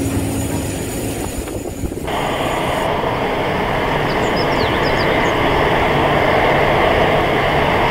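Airbus A319-112 jet engines running at taxi power as the airliner rolls past, a steady rushing noise that comes in about two seconds in.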